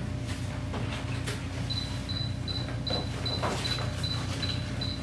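An electronic device beeping: short high-pitched beeps, about two to three a second, starting near the middle, over a steady equipment hum, with a few light clicks and knocks.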